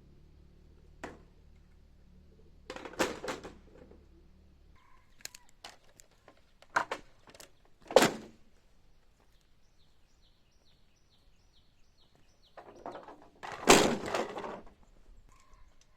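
Several separate dull thuds and knocks, the loudest about eight seconds in and a longer, noisier thud about fourteen seconds in. Between them, a bird calls in a quick run of short high notes.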